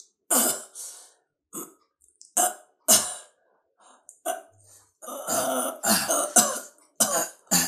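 A badly wounded man's pained, labored gasps, coughs and groans come in short separate bursts with pauses between them, growing more frequent in the second half.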